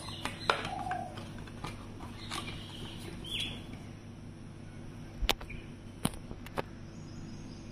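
A cardboard watch box and a paper instruction card being handled: a few sharp clicks and taps of the box flaps and card, the loudest a little past halfway, over a steady low hum.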